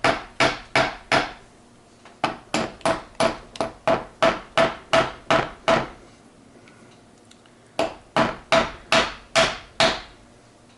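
Hammer tapping on metal gearbox parts, in three runs of evenly spaced strikes at about three a second, each strike ringing briefly, with short pauses between the runs.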